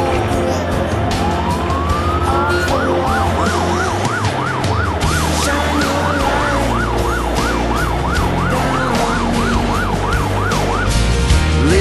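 Fire engine siren heard from inside the cab over the engine running. A slow wail falls and rises, then about two and a half seconds in it switches to a fast yelp of about three sweeps a second. The yelp breaks off briefly near the end and starts again with a rising sweep.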